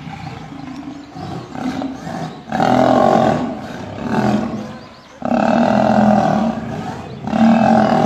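Lions growling during a fight, a male lion set upon by several lionesses. Quieter growls at first, then loud bursts from about two and a half seconds in, the longest lasting over a second.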